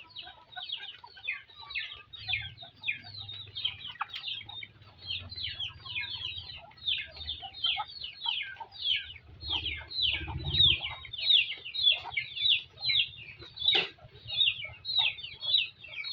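Chickens in a pen calling nonstop: a rapid run of short, high calls that fall in pitch, several a second, getting louder in the second half. A low hum runs beneath, and there is one sharp click near the end.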